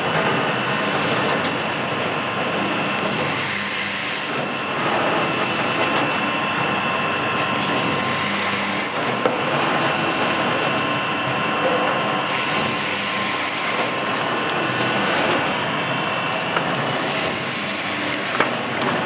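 Cup filling and sealing machine running: a steady mechanical clatter with a constant whine, and a hiss that comes back every four to five seconds.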